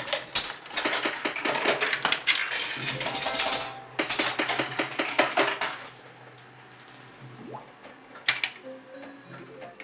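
Metal coins clattering in quick, dense clicks as they are fed into a Bally Wulff Blitz Komet coin-operated slot machine. The clatter lasts about six seconds, then it goes much quieter, with a single sharp click about eight seconds in.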